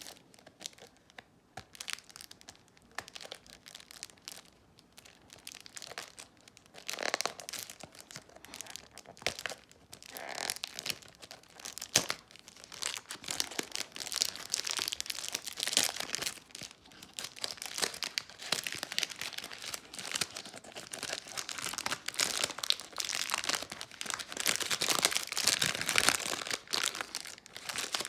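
Perfume packaging being unwrapped by hand: crinkling and tearing of wrapping, with scattered clicks. It is sparse and quiet for the first few seconds, then becomes a dense crackle that gets louder toward the end, with one sharp click about twelve seconds in.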